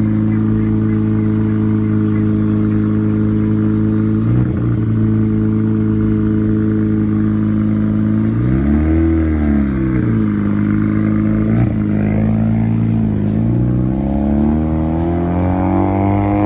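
A car engine idling loudly, blipped once about halfway through so its pitch rises and falls over about a second, with a few small dips and a gradual rise in revs near the end.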